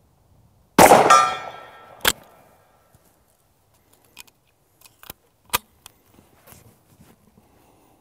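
A Greener GP single-shot 12-gauge shotgun fires once about a second in, followed by a steel gong ringing downrange as it fades out. A sharp snap follows about a second later, then a few light clicks and knocks as the Martini-style action is opened and reloaded.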